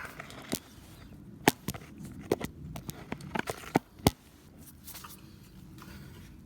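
Hand tools clicking and knocking against the car's suspension parts during disassembly: a scattered series of sharp knocks, the loudest about a second and a half in and just after four seconds, then only faint low noise.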